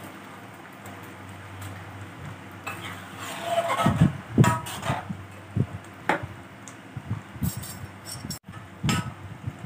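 Metal ladle stirring a thick curry in a metal wok, scraping and clinking against the pan in irregular strokes from about three seconds in. A steady low hum comes before the stirring starts.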